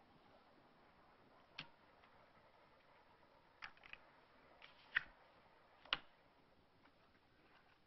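Near silence: quiet room tone broken by about six faint, scattered clicks and taps, the sharpest two about five and six seconds in.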